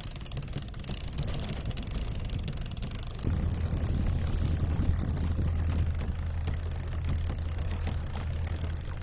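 Sailing yacht's inboard diesel engine catching about three seconds in, then running steadily at low revs.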